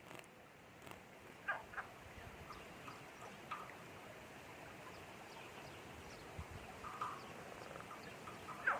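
Scattered short chirping calls of small wild animals, each a quick falling note, over a faint steady hiss of flowing river water; the loudest call comes near the end.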